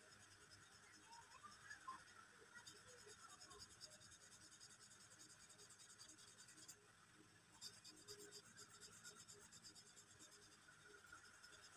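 Black marker pen scratching faintly on sketchbook paper in quick, repeated back-and-forth shading strokes, with a short pause about seven seconds in.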